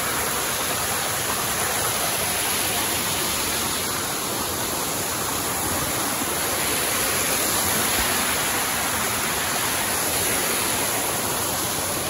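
Waterfall: water pouring and rushing steadily, one constant even noise with no break.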